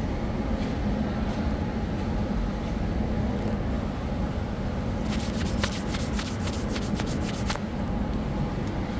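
Steady low rumble of an underground metro station's concourse with a faint steady hum. About five seconds in comes a rapid run of sharp clicks and rubbing lasting about two and a half seconds.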